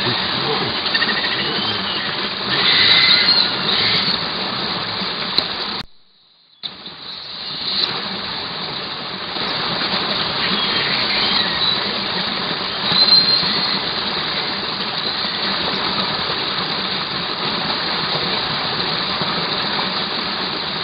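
Steady rushing of a small forest stream, with a few short high calls over it. The sound cuts out for about half a second near six seconds in, then the same steady rush resumes.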